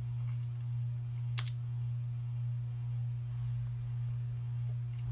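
Steady low hum with one sharp click about a second and a half in.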